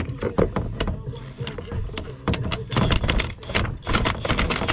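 Ratchet wrench on a long socket extension clicking in quick runs as a bolt in the engine bay is turned. The clicks are busier in the second half.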